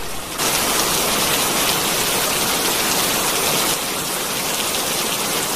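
Steady rain falling, an even dense hiss that swells about half a second in and dips slightly a little past halfway.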